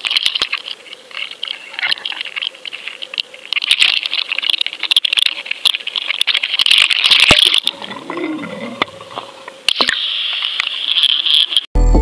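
Wind and water rushing against an action camera on a moving offshore boat, a steady hiss with scattered clicks and rattles. Music cuts in abruptly near the end.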